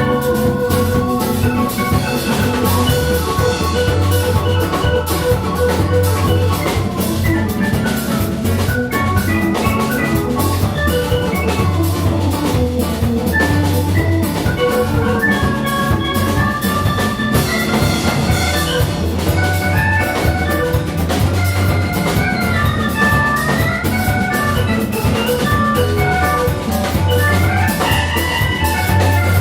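Instrumental ensemble music with drums: quick melodic note runs rising and falling over a steady low beat.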